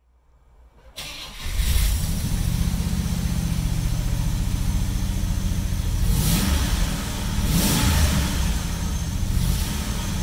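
A 1960 Chrysler 300F's 413 cubic-inch V8 starting up about a second in and settling into a steady, rumbling idle.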